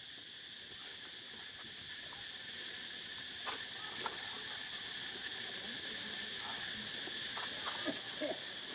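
Steady, high-pitched insect chorus buzzing without a break, with a few sharp clicks in the second half.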